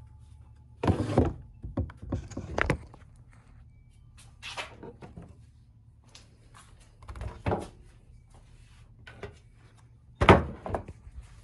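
Parts of a car's plastic engine air filter housing being handled: several bursts of knocks and clatters a couple of seconds apart, the loudest near the end.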